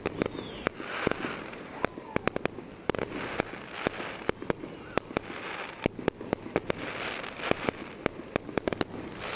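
Fireworks going off: many sharp pops and bangs in quick, irregular clusters, with stretches of hissing crackle between them.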